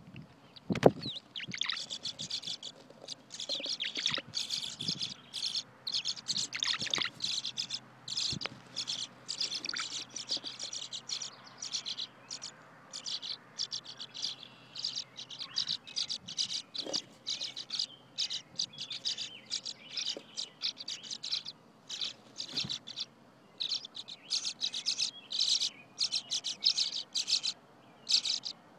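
Tree swallows chirping: rapid high twittering in dense runs with short pauses throughout. A single sharp knock about a second in.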